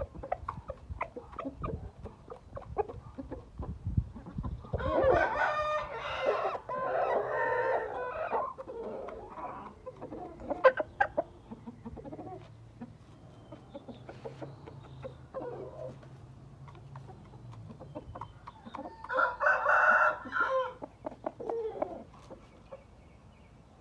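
Gamefowl rooster crowing twice, a long crow about five seconds in and another near twenty seconds, with chickens clucking and scattered knocks between.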